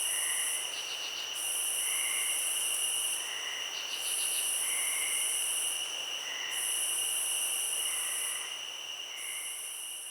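Night insect chorus of crickets and similar insects: a steady high-pitched trill runs on throughout, while a louder hissing buzz swells in for a second or two and drops out about every two and a half seconds, with short chirps in between and two brief rapid trills.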